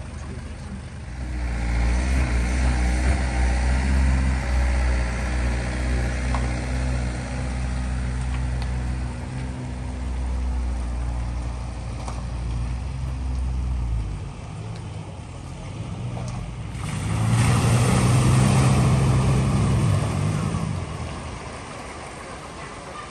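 Motor vehicles at a flooded ford. One vehicle's engine runs with a low, steady drone for roughly the first half. About two-thirds of the way through, a second, louder pass comes through with a rush of noise.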